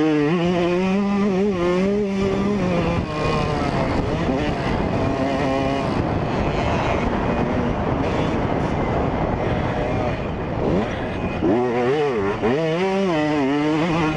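2003 Yamaha YZ125's two-stroke single-cylinder engine heard on board while riding motocross, its revs rising and falling quickly as the throttle is worked, held steady for a moment about two seconds in. For several seconds in the middle the engine tone is partly buried under a rushing noise, and quick rises and falls in revs come back near the end.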